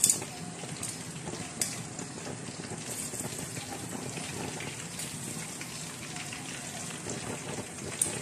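Pork leg (crispy pata) deep-frying in hot oil in a stainless steel pot: a steady sizzle with a few sharp clicks, one at the start, one about a second and a half in and one near the end.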